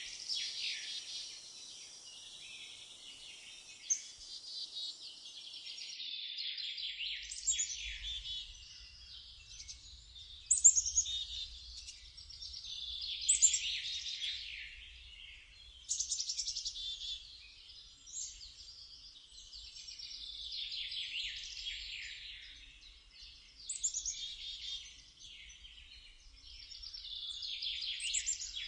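Songbirds singing a jumbled warbling song, phrase after phrase every few seconds, each often opening with a high falling note, over a faint low rumble.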